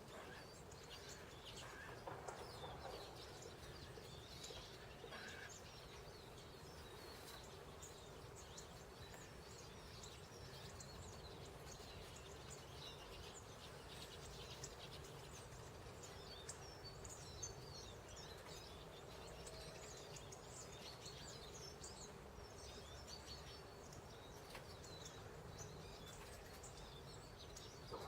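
Small birds chirping faintly, many short high calls scattered throughout, over a steady low background hum.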